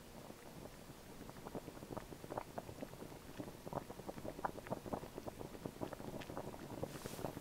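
Liquid in a metal spoon, heated over a lighter flame, sizzling and bubbling with small irregular pops that grow denser and louder.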